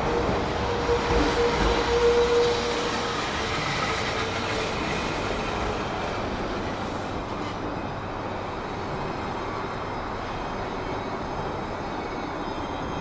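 JR East 205 series electric train arriving at a platform and braking to a stop. It is loudest in the first couple of seconds, with a steady whine that fades out, then settles into quieter, even rolling noise as it slows.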